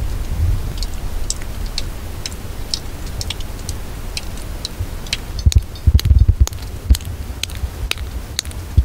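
Wind rumbling on the microphone with scattered sharp light ticks; from about halfway, heavy thumps and crunches of someone walking on fresh snow.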